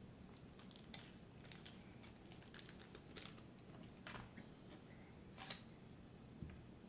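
Faint, scattered light clicks and taps from small plastic candy-kit packets and a plastic tray being handled on a table, with one sharper click about five and a half seconds in.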